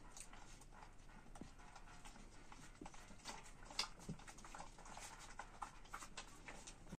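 Saluki puppies suckling from their standing mother: faint, irregular wet smacking and clicking from their mouths at the teats, with one sharper click a little before four seconds in.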